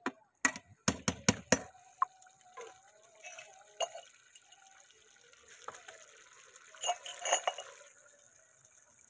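Metal spoon knocking and scraping against a steel cooking pot as rice is stirred, about half a dozen sharp knocks in the first two seconds. After that the rice water bubbles in the pot over the fire, with a few more clinks of the spoon around seven seconds in.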